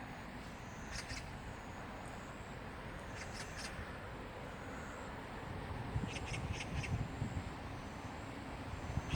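Stream water running steadily after rain, with a bird calling over it in short runs of quick, high repeated notes: once about a second in, again around three and a half seconds, and a run of four notes around six to seven seconds.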